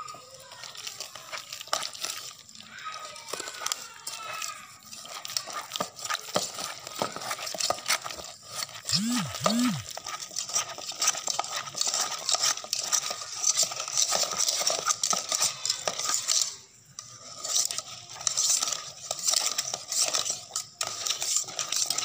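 Wire whisk beating thick martabak batter of flour and water in a bowl. The wires scrape and click rapidly against the bowl's sides, stopping briefly about three-quarters of the way through.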